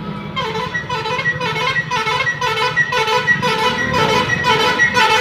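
Loud electronic tune of short, high, pitched notes, a fast figure repeating over and over about twice a second.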